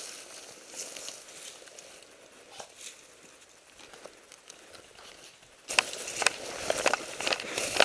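Dry brush and twigs rustling and crackling as someone pushes through undergrowth. Faint at first, then suddenly louder from about six seconds in, with many sharp, irregular snaps and cracks.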